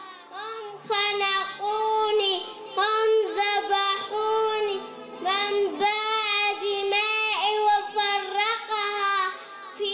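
A young girl singing an Arabic song into a handheld microphone, in sung phrases with short breaks between them.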